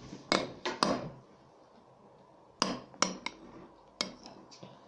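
A spoon clinking and knocking against a bowl in quick short taps, with a quiet gap of about a second and a half in the middle, while a slime mixture is stirred.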